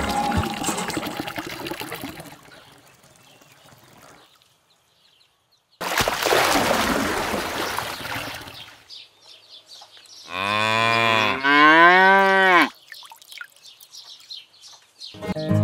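A cow moos twice, two long calls back to back, the second rising and falling in pitch; this is the loudest sound. Before it, background music fades out and water pours for about two and a half seconds, starting suddenly.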